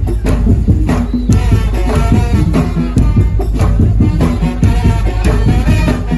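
Madurese tong-tong percussion music: drums and slit drums beat a fast, steady rhythm over a heavy low end, with a wavering melody line on top.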